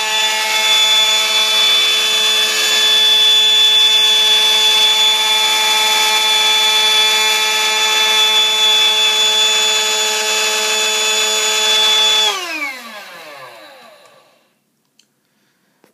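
Electric motor of an Airfix model jet engine kit spinning its fan and compressor at full speed on 9 volts with the throttle wide open, a loud steady whine. About twelve seconds in it winds down, the whine falling in pitch and fading out over about two seconds.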